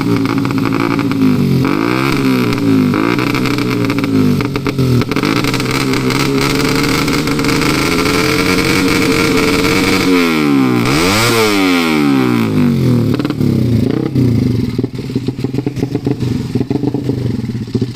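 Ported Suzuki Satria FU motorcycle engine being revved hard: several quick rises and falls in engine speed, a long stretch held at high revs, then a sharp drop and climb about ten seconds in before more blips.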